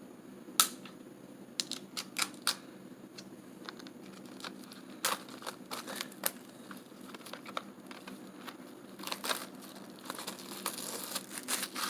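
Plastic shrink-wrap being torn open and crinkled off a DVD case: scattered sharp crackles and clicks, coming thicker near the end.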